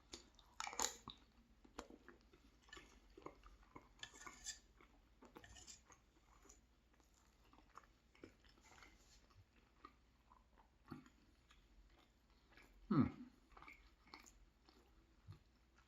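Close-up chewing and wet mouth sounds of someone eating meat pie, with scattered light clicks of cutlery on the plate and one louder mouth sound about 13 seconds in.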